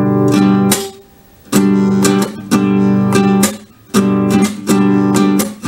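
Acoustic guitar strummed in a repeating down, up, muted-down pattern: ringing chords cut off by short percussive muted strokes, about one chord a second.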